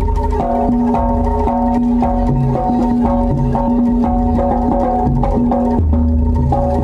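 Gamelan ensemble playing jaranan music: repeated notes on tuned metal percussion over a steady held tone, with drums keeping a regular beat.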